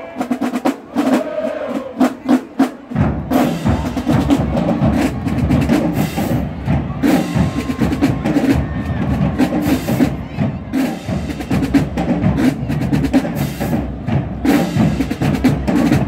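Marching band drumline playing a cadence: sharp, rapid stick clicks and drum hits in a driving rhythm, with a deep rumble filling in underneath from about three seconds in.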